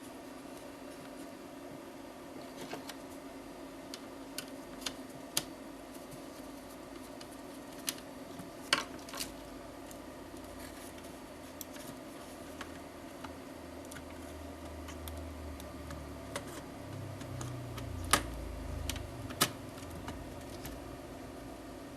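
A dozen or so sharp, scattered clicks and taps of small hard objects, the two loudest near the end, over a steady electrical hum. A low rumble swells up through the second half and dies away just before the end.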